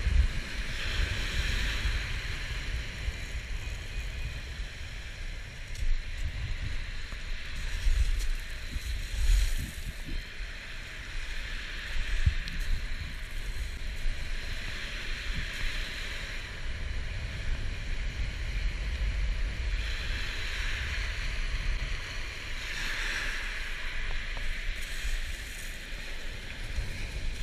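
Small waves breaking and washing up a shingle beach, the surf swelling and ebbing every few seconds, with wind buffeting the microphone in a low rumble.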